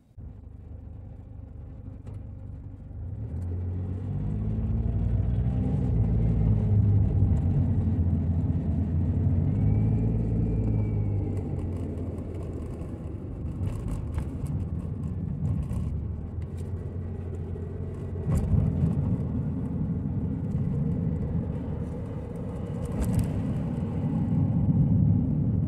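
Car engine and tyre rumble heard from inside the cabin as the car pulls away from a stop and speeds up, the engine pitch rising and dropping back twice. A few short sharp knocks come later as it drives on.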